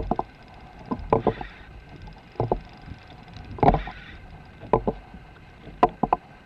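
Knocks and clunks on a Hobie kayak, coming in pairs or threes about once a second, some with a brief splashy hiss, as the angler fights a hooked tarpon.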